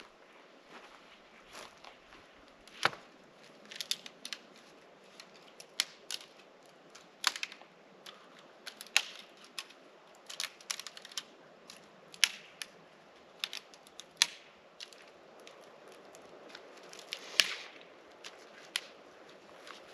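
Dry sticks and branches being snapped and handled for firewood: irregular sharp cracks and clicks, the loudest about three seconds in and near the end.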